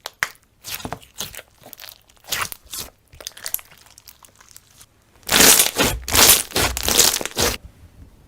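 Slime being squeezed and worked by hand close to the microphone, giving a run of sharp crackles and crinkling sounds, sparse at first and loudest and densest from about five seconds in until shortly before the end.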